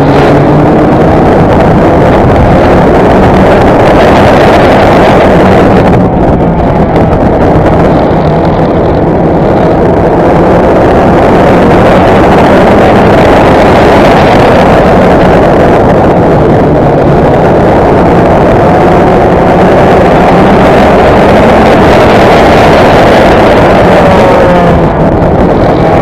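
Race car engines running hard at high revs, very loud and distorted, with wind noise on the microphone. The engine pitch rises and falls with the throttle through the corners and climbs again near the end.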